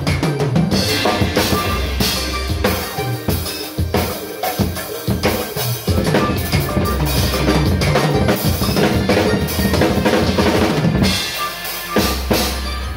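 Acoustic Pearl drum kit played hard and busily, with bass drum, snare and cymbal strikes, over a recorded backing track with a steady bass line.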